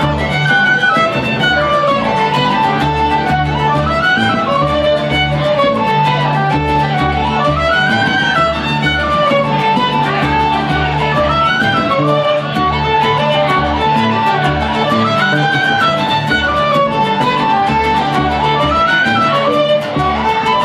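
Irish jigs played on fiddle, with strummed acoustic guitar and double bass underneath. The fiddle carries a quick, lilting melody over a steady rhythmic accompaniment.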